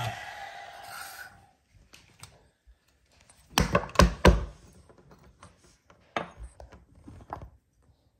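A DF64 coffee grinder's motor is switched off and winds down over about a second and a half. Then comes the clatter of handling a portafilter with a dosing cup on it: three sharp knocks close together a little past three and a half seconds in, the loudest sounds here, then scattered small clicks.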